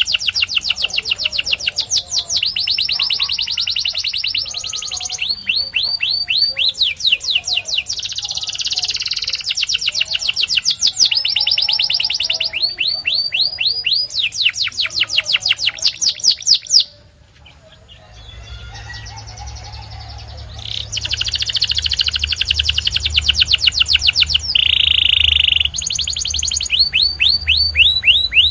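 Domestic canary singing: fast trills of rapidly repeated notes, each phrase switching to a new note type every second or two. There is a short break about two-thirds of the way through, and one held, steady whistled note near the end.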